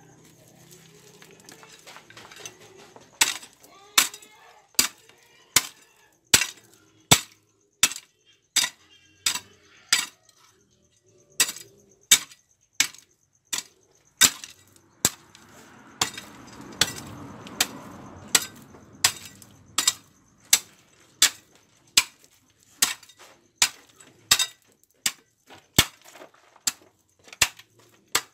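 A metal hoe blade chopping into hard, stony soil in a steady rhythm of sharp clinking strikes, a little more than one a second, beginning a few seconds in.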